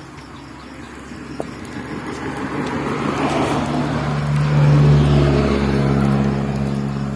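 A motor vehicle's engine close by, growing louder to a peak about five seconds in and then easing off, with a steady low hum.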